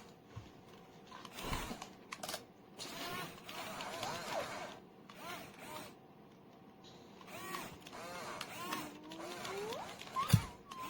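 Children's voices talking and calling faintly, broken by a few knocks, the loudest about ten seconds in.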